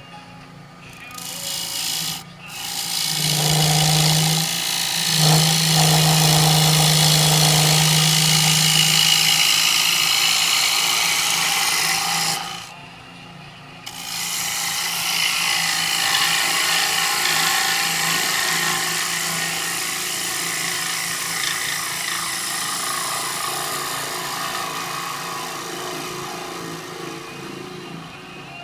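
A gouge cutting the inside of a spinning cherry bowl on a wood lathe makes a rough, scraping cut over the lathe's steady hum. The cut stops for a moment about halfway through, then starts again and slowly gets quieter towards the end.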